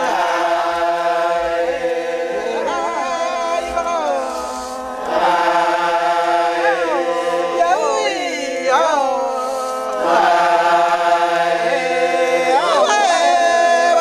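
A group of Papuan men chanting together in unison on long held notes, the voices sliding up and down in swoops every couple of seconds.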